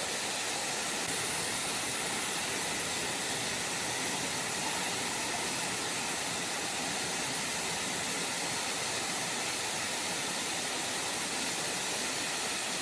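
Water of the Bigăr waterfall falling and splashing in a steady, even rush, heavier in the highs than in the lows.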